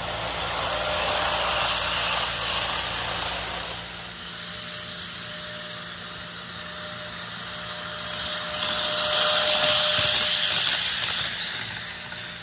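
HO scale model train running on the layout, its wheels rolling on the rails with a steady hiss that swells twice as it passes close. A faint steady whine runs through the middle.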